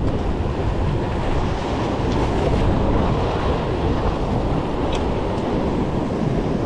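Sea surf breaking and washing against a rock ledge, a steady rushing with wind buffeting the microphone.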